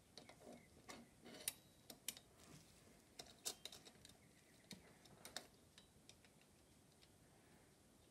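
Faint, irregular small clicks of the brass parts of an English mantel clock movement being handled and fitted by hand, dying away about two thirds of the way in.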